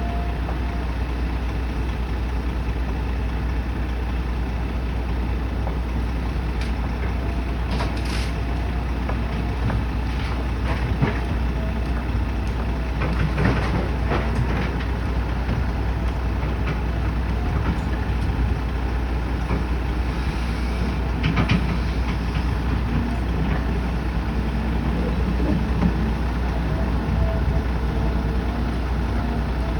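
Construction site ambience: a steady low rumble with scattered short knocks and clanks.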